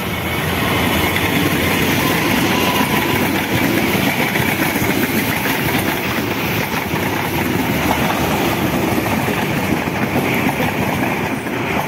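Passenger train hauled by a CC 203 diesel-electric locomotive passing close at speed. The sound swells over the first second as the locomotive goes by, then a long rake of coaches runs past with steady, loud wheel-on-rail noise.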